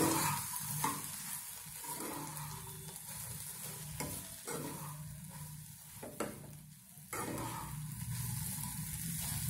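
Sliced okra frying with a steady sizzle in a nonstick kadhai while a spatula stirs and tosses it, scraping and knocking against the pan several times.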